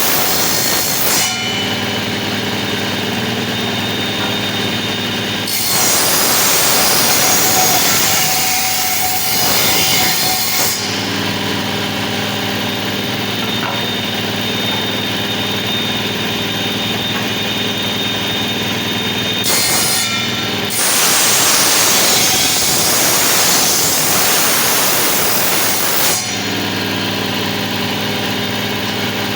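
A woodworking power tool's electric motor runs steadily throughout. Three times, at the start, from about 5 to 11 seconds in and from about 21 to 26 seconds in, it gives a loud, hissing cutting noise as it works through wood, then falls back to the plain motor hum between cuts.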